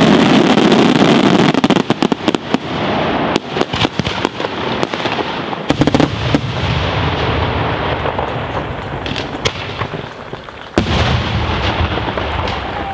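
Daytime aerial fireworks bursting overhead. A dense crackle of many small reports at first gives way to scattered sharp pops, then to booming shell bursts with a low rumble. A fresh loud burst comes about eleven seconds in.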